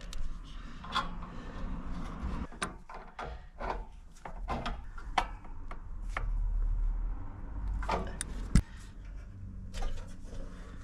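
Handling noises: scattered clicks and knocks with some rubbing as objects are moved about, with one sharper knock about eight and a half seconds in.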